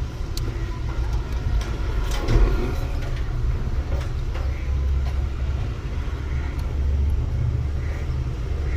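Road traffic noise: a steady low rumble of passing vehicles that swells a couple of times, with a few faint clicks over it.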